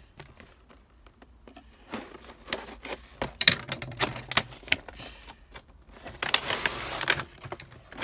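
Cardboard packaging being opened and handled by hand: scattered taps, clicks and scrapes, with a longer rustling scrape about six seconds in.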